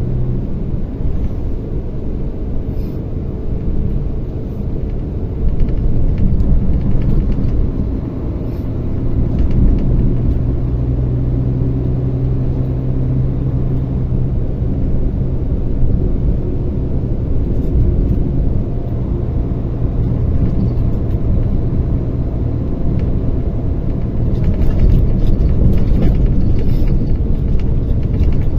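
Mercedes-Benz Axor 2644 truck's diesel engine running steadily, a low hum whose pitch and loudness shift a little, louder again near the end.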